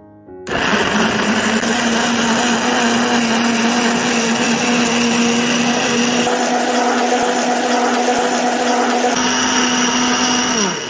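Electric kitchen blender switched on about half a second in, its motor running steadily at full speed while blending a liquid mixture. Near the end it is switched off and the motor winds down with a falling pitch.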